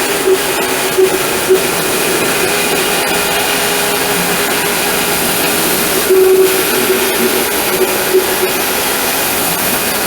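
Homemade sawmill running steadily while milling a pine log into boards, giving a loud, even machine noise with a steady hum.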